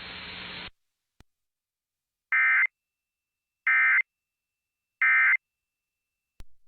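Emergency Alert System end-of-message signal: three short, identical bursts of SAME digital data squawk, evenly spaced about a second and a half apart, marking the end of the flash flood warning broadcast. Before them a steady radio hiss cuts off abruptly, followed by a single faint click.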